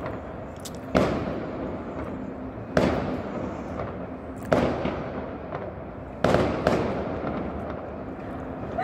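Aerial firework shells bursting: about five sharp bangs, roughly one and a half to two seconds apart, two of them close together near the end. Each bang trails off in a fading echo, with a few smaller pops in between.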